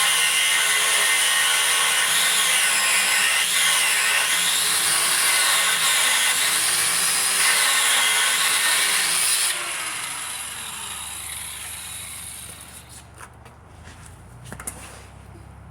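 Abrasive cut-off wheel cutting through a steel van frame rail, a loud high-pitched whine whose pitch dips and recovers as the wheel bogs under load. About nine and a half seconds in the tool is switched off and winds down.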